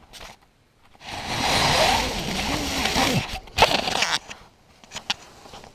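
A person's voice, loud and close, for about two seconds starting about a second in, followed by a sharp click.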